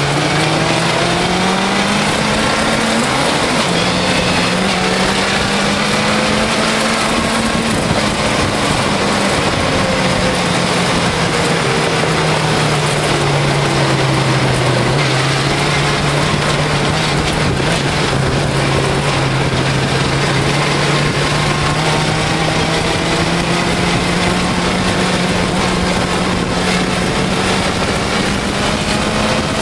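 Suzuki GSX-R600 inline-four motorcycle engine powering an off-road buggy on the move, its revs climbing, easing off and climbing again as it drives, over a steady rush of noise.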